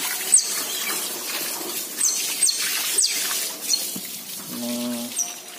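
Water from a hose spraying onto the floor of an otter cage during cleaning, a steady rushing hiss. Several short, high chirps falling in pitch sound over it.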